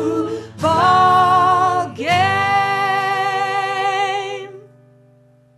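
Woman singing the closing line of a folk song to acoustic guitar, ending on a long held note with vibrato that stops about four and a half seconds in. A low guitar chord lingers after it and fades away as the song ends.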